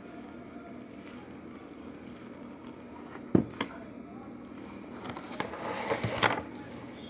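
Kitchenware being handled: a sharp knock a little before halfway through, a lighter one just after it, then a run of clicking and clattering near the end, as of a pot, spoon or bowl being moved and knocked.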